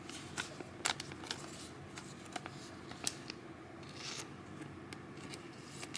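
Trading cards being handled: scattered soft clicks and light rustles of cards, with a short soft swish about four seconds in.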